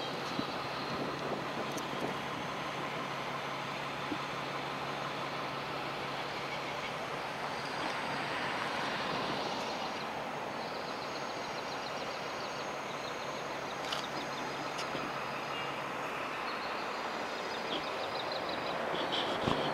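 City street traffic noise, a steady wash of vehicle sound with a low engine hum that stops about three-quarters of the way through.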